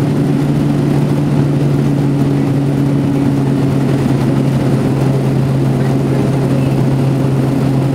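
Quest Kodiak's single Pratt & Whitney PT6A turboprop and propeller droning steadily in the climb after takeoff, heard from inside the cabin: a constant low hum over a broad rush of engine and air noise.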